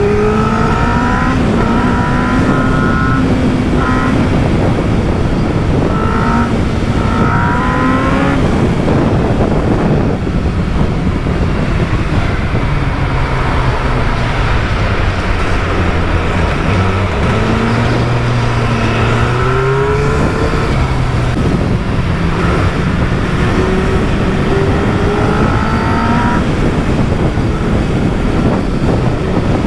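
Motorcycle engine pulling away several times, its pitch rising with each pull and dropping back, over loud steady wind and road noise on the helmet microphone.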